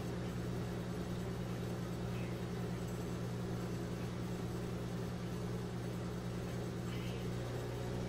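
A 1987 GE SpaceMaker II microwave oven running, with a steady low hum.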